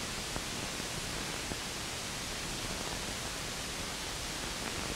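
Steady hiss of an old film soundtrack with no other sound, marked only by a couple of faint ticks in the first second and a half.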